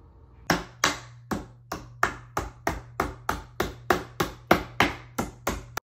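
Hammer blows, about fifteen quick strikes at roughly three a second, each ringing briefly, over a low steady hum; the sound cuts off abruptly near the end.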